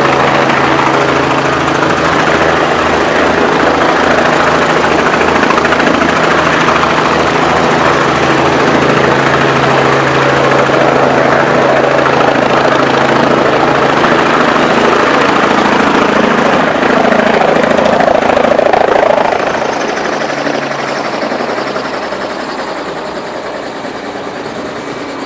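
Robinson R44 Raven II helicopter hovering close to the ground, its six-cylinder Lycoming piston engine and rotor running loud and steady with a low beating pulse. About twenty seconds in the sound drops and keeps falling as the helicopter settles on its skids and power comes off.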